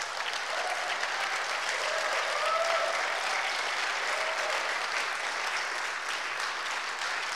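Audience applauding steadily, with a few voices faintly calling out in the crowd.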